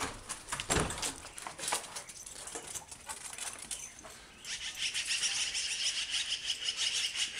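Door handling with clicks and a thump about a second in, then from about halfway on, magpies calling in a rapid, continuous run of repeated notes as they are put up by a dog.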